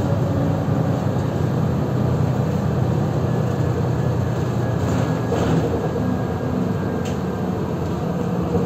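Inside a moving city bus: steady low drone from the engine with road and tyre noise, and a few faint rattles.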